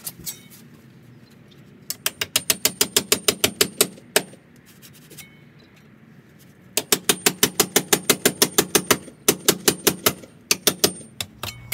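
A hammer striking a heavy-duty putty knife that is being driven into wooden door trim to split off a raised strip. The blows come fast, about seven a second, in two long runs with a few single strikes between and after, each hit giving a faint metallic ring.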